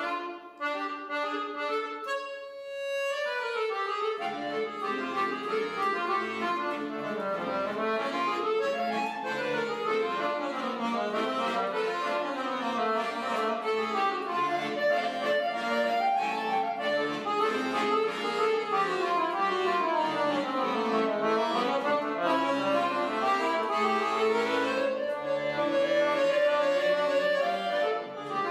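Piano accordion played solo: fast runs of notes rising and falling in the right hand, with low bass notes coming in about four seconds in.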